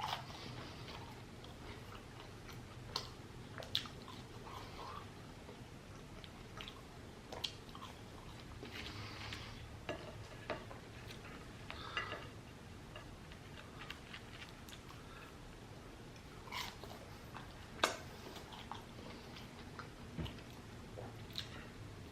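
A man chewing and biting crunchy fried food close to the microphone, mostly quiet chewing with scattered short crunches and clicks.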